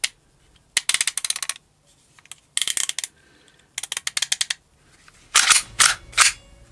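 Quick runs of small plastic-and-metal clicks and rattles as the recoil spring and guide rod of an Umarex Glock 17 Gen 5 gas airsoft pistol are handled in the slide. Louder clacks follow near the end as the slide is fitted back onto the frame.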